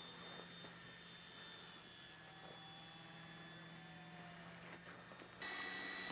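Faint, steady drone of a radio-controlled model airplane's motor in flight, with a slight falling pitch in the middle; it gets abruptly louder near the end.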